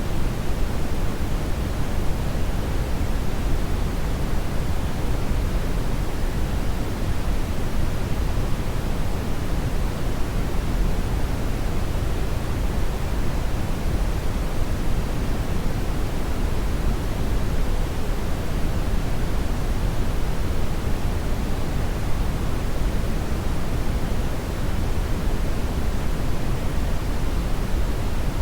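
Hair dryer running steadily: an even, unchanging rush of air, deepest at the low end, with no change in speed.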